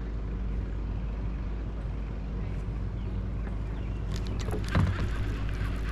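A boat motor running steadily with a low, even hum. About five seconds in there is one brief, louder knock.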